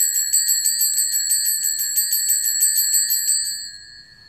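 Altar bells shaken rapidly as the chalice is raised at the consecration, a fast, even jingle that stops about three and a half seconds in and leaves a ringing tone dying away.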